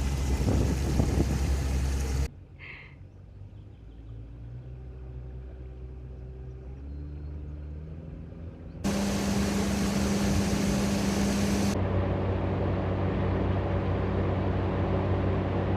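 A boat's engine running steadily under way, a low drone with wind and water noise, heard in several short clips cut together: it drops to a quieter hum about two seconds in and comes back loud about nine seconds in.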